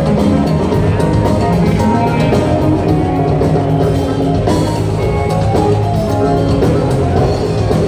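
Live rock band playing a song at a steady loudness: electric guitars over a drum kit.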